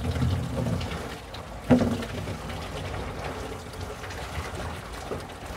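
Water from a solar-powered bilge pump pouring steadily into a plastic rain-water barrel as it fills, with one sharp knock about two seconds in.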